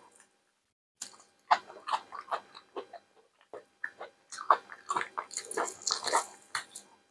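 Close-miked biting and chewing of boiled salted tripe (işkembe tuzlama): irregular runs of short mouth clicks that start about a second in and grow densest near the end.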